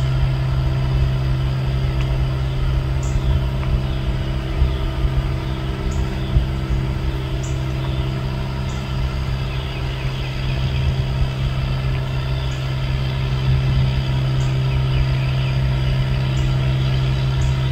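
An engine idling steadily with a low, even hum, with a few faint ticks here and there.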